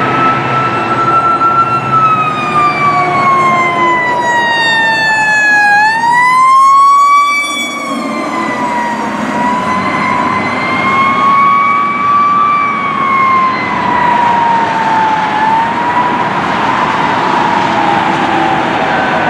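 Fire engine siren wailing as a 2008 Sutphen pumper passes. The slow, uneven wail winds down over several seconds, sweeps sharply back up about six seconds in, then wavers up and down. The truck's engine can be heard beneath it at first.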